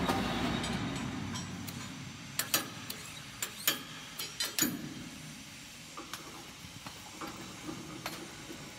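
Light metallic clicks and knocks from hands-on assembly work on a roll forming machine's roller shafts, bunched about two to five seconds in and thinning to faint ticks after, over a steady low workshop hum.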